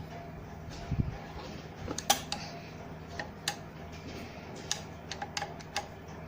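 Sewing machine parts being refitted by hand: scattered sharp metal clicks and light knocks as screws and parts go back in, with a duller thump about a second in.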